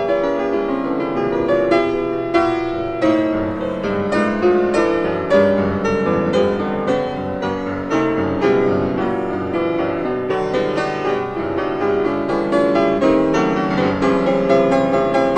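Background piano music, a steady run of notes played throughout.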